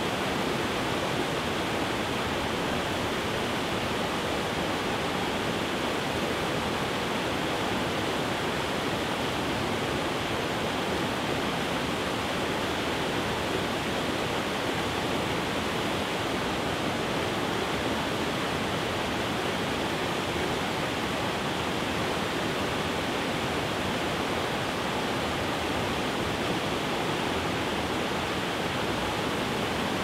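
A river pouring over low rocky falls and cascades: a steady, unbroken rush of water.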